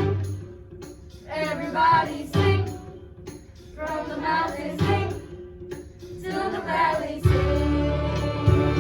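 Holiday song sung by a group of voices in short phrases with pauses between them, over light instrumental backing; a fuller accompaniment with a bass line comes in about seven seconds in.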